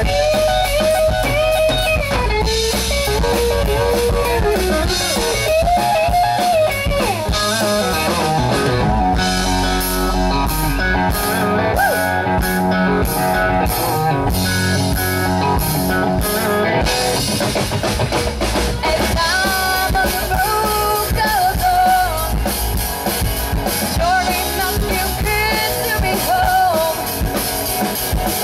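Live rock band playing: a woman singing lead over electric guitar, bass guitar and drum kit. Her voice drops out for about ten seconds in the middle while the band plays on, then comes back in.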